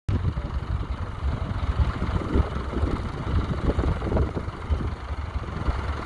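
Massey Ferguson 35 tractor engine running steadily with a rough, fast pulsing chug as it pulls a plough through the soil.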